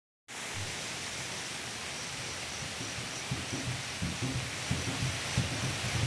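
Steady hiss of forest ambience, with a faint high pulsing tone above it. Soft low thumps come in from about three seconds in.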